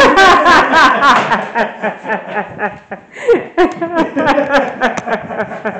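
People laughing: runs of quick chuckles, with a short break about halfway through.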